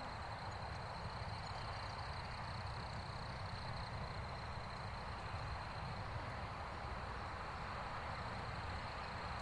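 Night-time outdoor ambience: a steady, unbroken high insect chorus over a soft, even hiss, with no distinct bird calls standing out.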